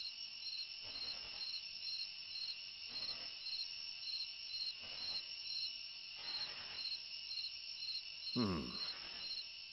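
Crickets chirping steadily, a pulsing trill repeating about twice a second. Near the end there is a brief voice-like sound falling in pitch.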